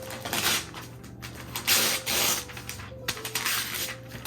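Wrapping paper being torn and crinkled off a gift in three rough rips.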